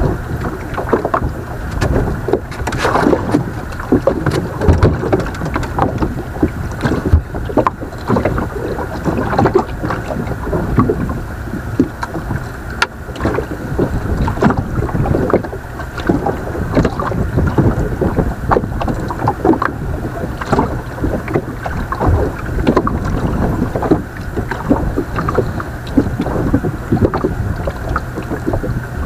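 Water slapping and knocking irregularly against the hull of a small fishing boat as it rocks on the sea, with wind buffeting the microphone.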